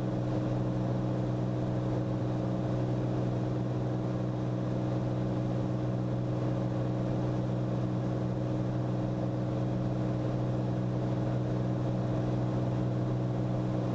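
Cirrus SR22T's turbocharged six-cylinder engine and propeller running steadily in flight, an even drone made of several low tones that hold without change.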